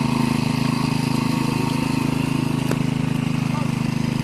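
A small engine running steadily at a constant speed, with a fast, even pulsing beat.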